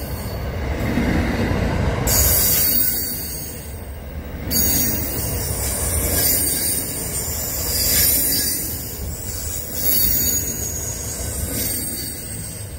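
A Pacific National freight train of double-stacked container wagons rolling past at speed: a steady low rumble from the wheels on the rails with a high hiss and squeal over it, swelling and easing every few seconds as the wagons go by.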